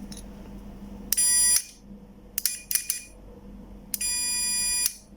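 A digital multimeter's continuity buzzer sounds in separate beeps as the probes touch a relay's contacts. First comes a half-second beep, then a few short broken beeps, then a beep of about a second near the end, each one showing the contacts conducting.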